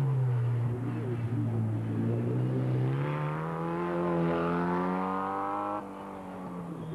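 Formula Ford single-seater race car engine running hard under acceleration, its note rising steadily for about three seconds. Near the end it drops suddenly to a quieter, steadier engine note.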